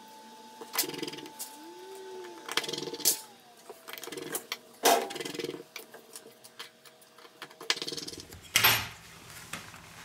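Scattered small clicks and taps of tools and parts being handled on an opened LG G6 smartphone during reassembly, with the loudest knock near the end.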